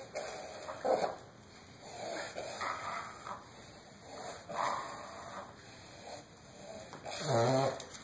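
Small curly-coated dog coughing in several rough fits, with snoring-like laboured breaths between them, the sign of a dog struggling to catch her breath; the loudest and longest cough comes near the end.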